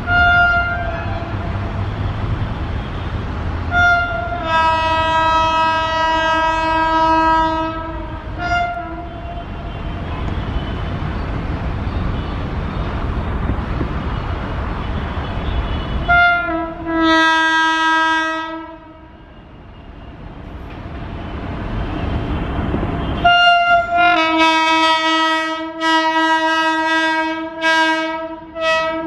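WAP-7 electric locomotive's air horn sounding over the rumble of the approaching train: three times a short toot followed by a long blast of several seconds. Rapid sharp clicks of the wheels join the last blast near the end.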